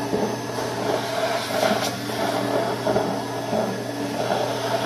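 Build-A-Bear Workshop stuffing machine's blower running steadily, blowing fiberfill through the nozzle into a teddy bear, with a constant low hum.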